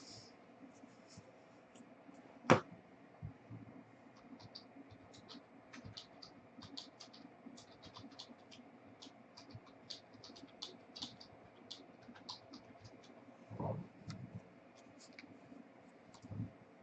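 Faint scratching and light ticking of trading cards being handled and slid against one another, with one sharp click about two and a half seconds in.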